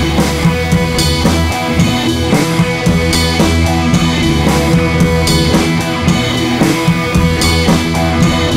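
Background rock music with drums and guitar.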